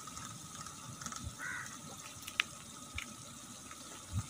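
Tomato masala gravy simmering in a large aluminium pot, a faint bubbling with a few small ticks.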